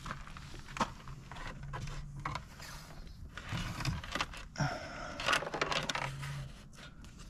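Wiring and plastic dash trim being handled: irregular rustling, scraping and small clicks as wires are fed and pulled through the opened centre dash.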